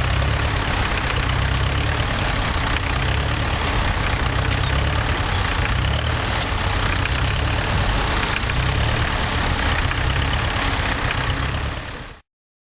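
Tractor engine running steadily with a low rumble, fading out quickly near the end.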